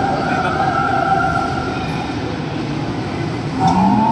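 Games-arcade din: a steady loud wash of noise with held electronic tones from the machines, and a rising tone joining about three and a half seconds in.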